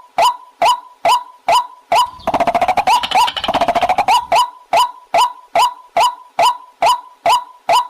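White-breasted waterhen (dahuk) calling: a steady series of sharp, repeated notes about three a second. About two seconds in, a faster, denser run of notes cuts in for about two seconds, then the even series resumes.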